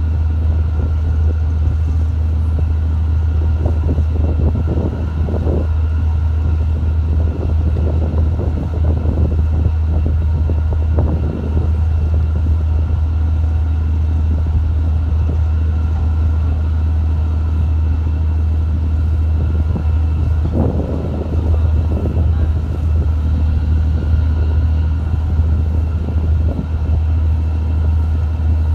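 Boat diesel engine running steadily, a loud, even low drone with a few faint steady higher tones over it.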